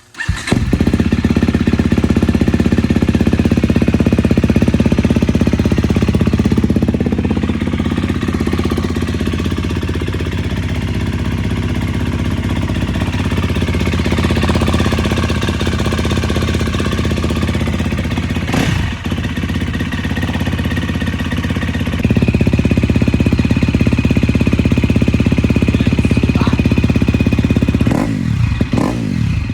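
2019 KTM 250 SX-F single-cylinder four-stroke engine running loud and steady through a new FMF titanium slip-on exhaust, with a few quick rises and falls in revs near the end.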